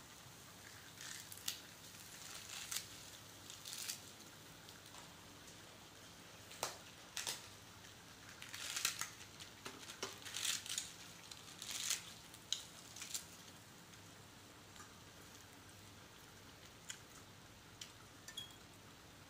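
Metal fork and spoon clinking and scraping against plates and bowls as vegetables and raw pork are handled at the table: scattered short clicks, busiest in the middle and thinning out toward the end.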